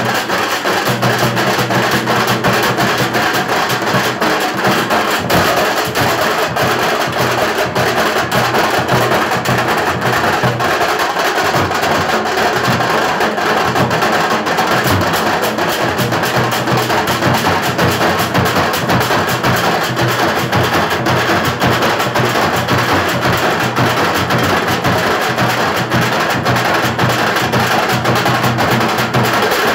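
A group of large metal-shelled drums beaten with sticks, playing a loud, dense, unbroken rhythm of strokes.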